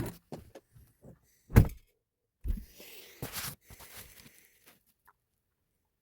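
A few light knocks, then a loud thump about one and a half seconds in and another thump a second later followed by a short rustle, after which it goes quiet.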